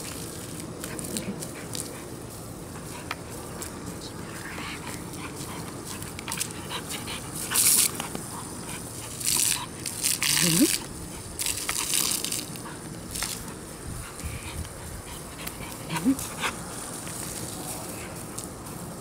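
A garden hose jet hisses and splashes on the lawn as a Vizsla chases it, with loud bursts of spray in the middle when the water strikes the dog. The dog gives a short rising whine about ten seconds in and another a few seconds later.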